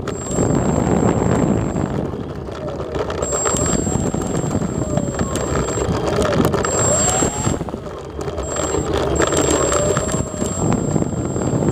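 Onboard sound of a Parkzone T-28 Trojan electric RC plane in flight: steady wind rush over the fuselage with the whine of its brushless motor and propeller. A thin high whine cuts in and out several times, and fainter tones glide up and down as the motor speed changes.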